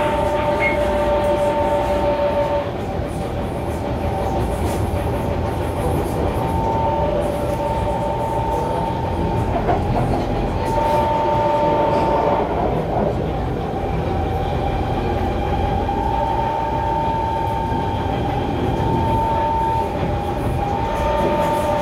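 Kawasaki C151 metro train running at speed, heard from inside the car: a steady rumble of wheels on the track, with two steady high tones from the running gear that keep fading out and returning.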